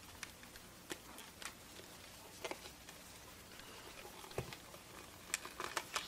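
Faint scattered clicks and scrapes of hands handling a plastic digital multimeter while working its tight-fitting cover off.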